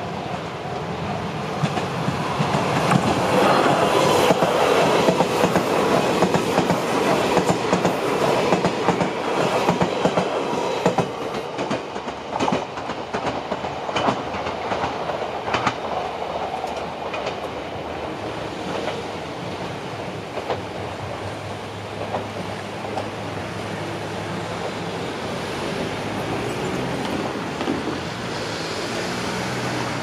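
Limited express Fujisan, an Odakyu 60000-series electric train, passing over the level crossing with wheels clattering over the rail joints. It is loudest for about the first ten seconds, then the rumble fades. A car drives across the crossing near the end.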